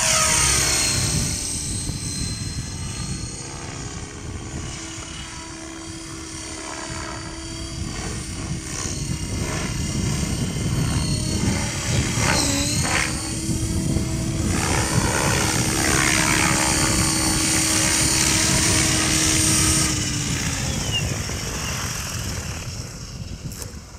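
Outrage Fusion 50 radio-controlled model helicopter flying: a steady high whine with rotor beat. The pitch wavers and sweeps as it manoeuvres and passes by about halfway through. Near the end the whine drops away and the sound eases off as it comes down to land.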